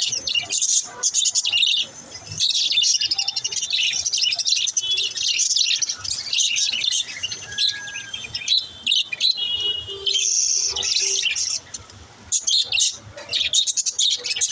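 Budgerigars chirping and chattering, many quick overlapping high calls in a dense stream, with brief lulls about two seconds in and near the end.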